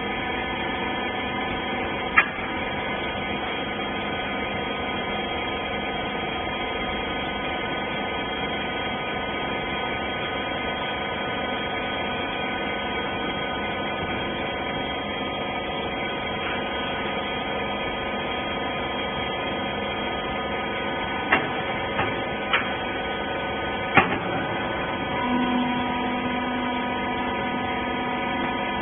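Hydraulic rag baler's power unit running with a steady, many-toned machine hum. There is a sharp click about two seconds in and several more clacks late on, and a lower tone joins near the end.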